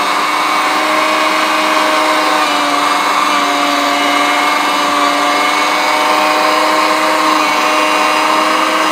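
Anko 300 W electric meat mincer running loud and steady at an unchanging pitch, a screaming whine from its motor and gearing as it grinds cubed porterhouse beef with ease. The owner puts the noise down to a high reduction gear ratio driving a slow, high-torque auger.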